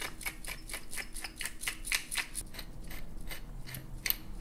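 Hand-twisted pepper mill grinding, a fast run of crisp ratcheting clicks, about five a second.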